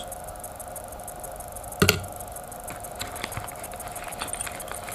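One sharp knock as a carbon-fibre frame part is set down on a wooden table, about two seconds in, followed by a few faint ticks of handling. A faint steady hum runs underneath.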